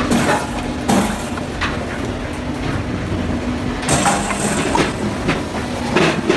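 Firewood processor running with a steady machine hum, while wood knocks and clatters through it in repeated sharp cracks and clunks, the loudest about a second in, around four seconds in and near the end.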